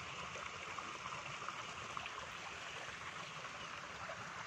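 Steady, faint hiss of running water, with a couple of faint ticks.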